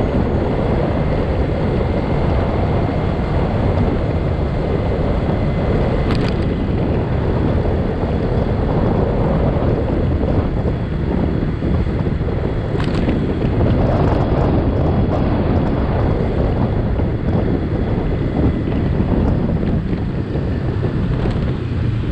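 Wind buffeting the microphone of a moving camera, a loud steady rumble mixed with street traffic noise, with a couple of brief clicks partway through.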